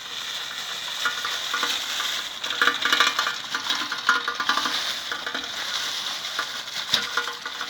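BMX bike rolling over a wet, leaf-covered dirt track, with a steady crackling from the tyres on leaves and ground.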